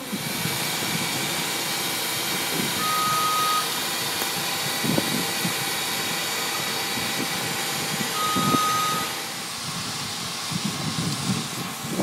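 Steady rushing machine noise with two short, single-pitch beeps about five seconds apart.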